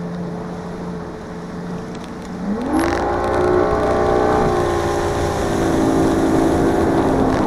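Boat's outboard motor running steadily, then about two and a half seconds in it revs up, its pitch rising and holding higher and louder as the boat accelerates, with water rushing past the hull.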